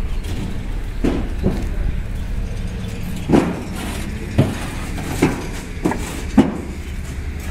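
Bricks being loaded by hand into a tipper trailer, knocking as they are set down on one another: about seven separate clunks, the loudest near the end, over a steady low hum.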